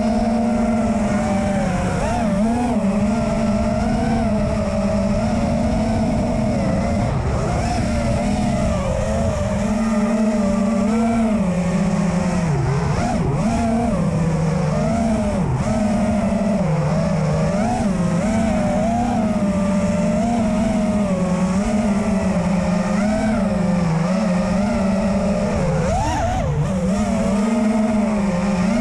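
Five-inch FPV quadcopter's four DYS 2306 2500kv brushless motors and Ethix S3 props, heard from on board, whining steadily. Their pitch dips and rises again several times as the throttle is eased off and pushed on.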